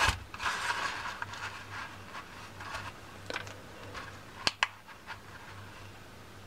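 Handling noise as a small digital pocket scale is set down on carpet: a knock, then a second or so of rustling, then two sharp clicks close together about four and a half seconds in as its ON button is pressed. A faint steady low hum runs underneath.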